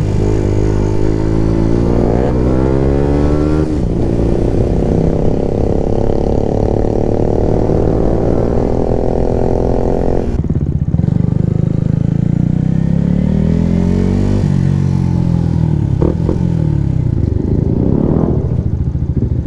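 125 cc single-cylinder Yamaha motorcycle engines with loud aftermarket exhausts, accelerating through the gears. The pitch climbs steadily and drops sharply at gear changes about ten and fourteen seconds in.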